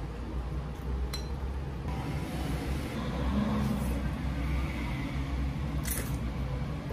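Chopsticks clinking against a glass bowl, a couple of light clinks about a second in, and noodles being eaten with a short slurp near the end, over a steady low hum.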